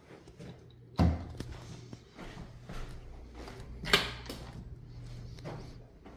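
An interior door being handled: a sharp, loud knock about a second in and another near four seconds, with smaller clicks and rattles between.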